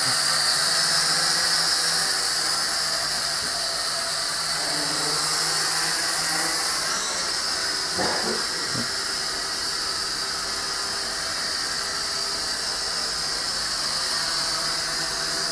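MJX X400-V2 quadcopter's motors and propellers whining steadily in flight, with a few brief knocks about halfway through.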